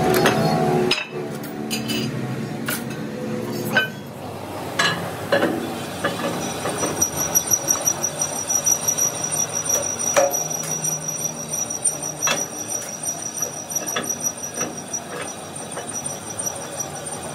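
Steel parts clinking and knocking against a press's steel tooling as a heavy plate is handled and set in the die, with a loud burst in the first second. From about six seconds in, a steady high-pitched machine whine runs beneath the knocks.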